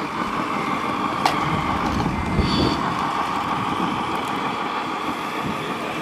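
Radio-controlled scale model truck driving slowly, a steady mechanical hum with a sharp click a little over a second in and a brief high beep near the middle.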